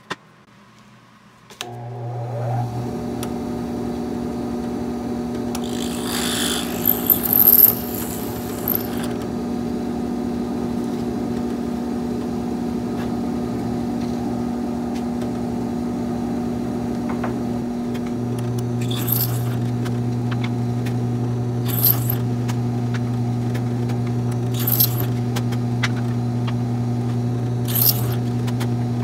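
Benchtop drill press motor running steadily with a hum, broken by several short bursts of the bit cutting into the laminated wood pieces of the box.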